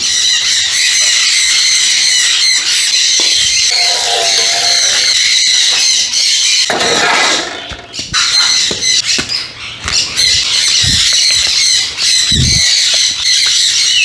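A flock of pet parrots screeching and squawking in a continuous, dense chorus, with a brief lull a little past the middle and a couple of dull thumps near the end.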